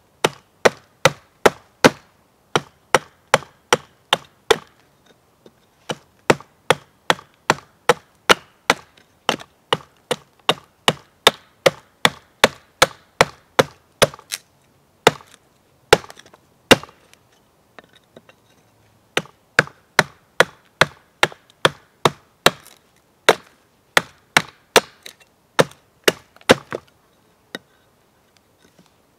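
Hatchet chopping into an upright hardwood stick, hewing chips off a fork blank: sharp woody knocks about two a second, in runs that break off briefly three times.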